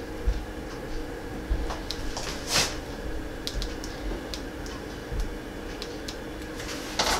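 Handling noise: scattered light clicks and soft low knocks over a steady faint hum, with one short whoosh about two and a half seconds in.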